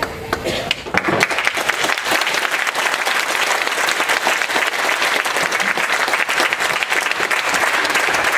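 Audience applauding: dense clapping that sets in about a second in and keeps up steadily.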